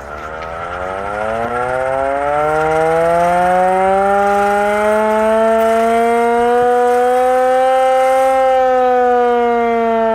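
Carter Secomak hand-cranked air raid siren being wound up: its wail rises in pitch and loudness over the first few seconds, keeps climbing slowly, then falls a little near the end.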